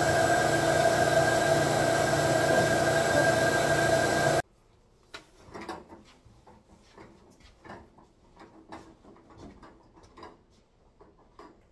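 Carpet-shampoo extractor's vacuum motor running with a steady whine over a loud hiss, cutting off suddenly about four seconds in. After that, faint knocks and clicks as a folding table is handled and moved.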